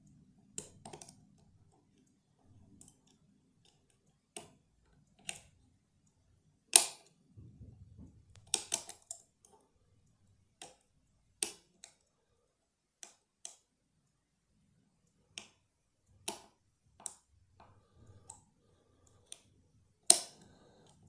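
Irregular sharp metallic clicks and taps of a wire pick working inside a lever lock, with long gaps between them; the loudest click comes about seven seconds in and another just before the end.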